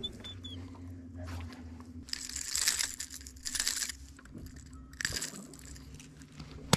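Rustling, crunching handling noise in three short bursts as a small bass is unhooked from a jerkbait with fish-grip pliers, over a faint steady low hum.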